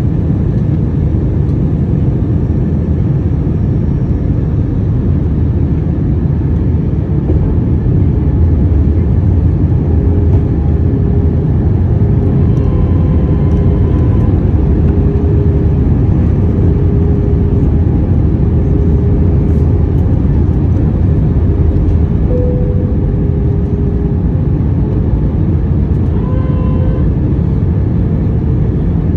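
Steady cabin noise inside an Airbus A321-200 airliner: a deep, even rumble of engines and airflow, with faint hums that come and go over it.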